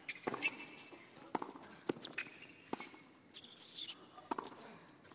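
Tennis rally on a hard court: the ball cracks off the racquets and bounces, with sharp hits every half-second to second. Between the hits, shoes give short high squeaks on the court surface.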